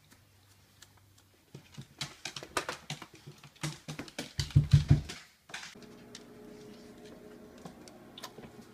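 An American foxhound's claws clicking and pattering on a hardwood floor as she gets up and walks, a quick run of sharp ticks with a few heavier thumps about four to five seconds in. A steady low hum follows, with only occasional clicks.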